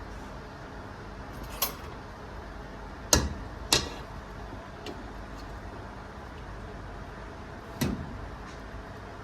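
Four short sharp knocks or clacks, spread out with long gaps, over a steady background noise.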